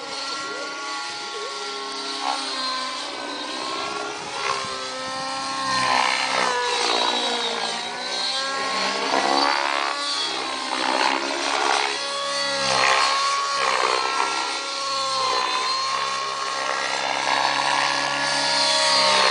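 Nitro-engined Rave 90 RC helicopter flying aerobatics. The engine and rotor pitch rises and falls continually as it manoeuvres, with several louder passes.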